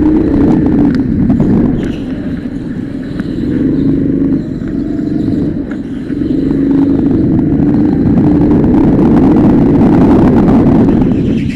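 Go-kart engine at high revs, heard from on board. The engine note drops twice, about two and about four and a half seconds in, then rises and holds strong for the last five seconds.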